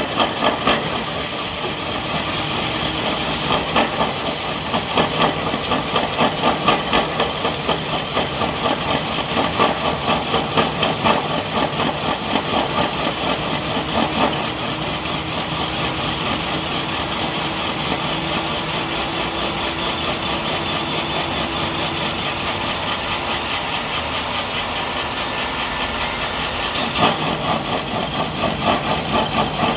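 Concrete core drilling machine running and cutting: a steady motor with a rapid grinding rattle and a hiss, the rattle easing about halfway through and coming back near the end.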